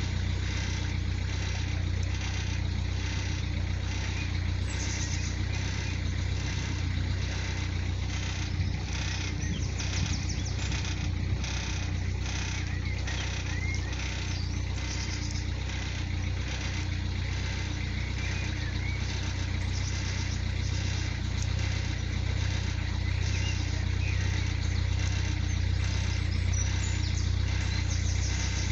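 Narrowboat's inboard engine running steadily while cruising, a constant low beat with no change in speed.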